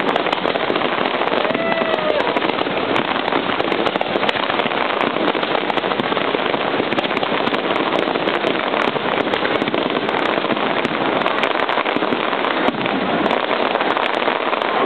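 Fireworks display: a dense, unbroken crackle of many small bursts popping at once, steady in loudness throughout.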